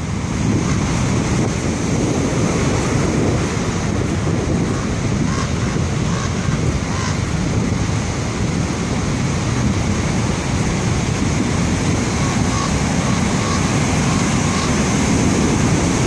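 Heavy storm surf breaking and washing up the beach: a continuous, steady rush of large waves and whitewater.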